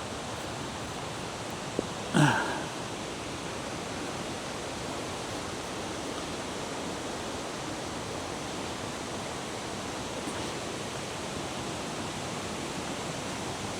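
Steady, even rush of a waterfall cascading down a rocky river. About two seconds in, a faint click and then a short vocal sound.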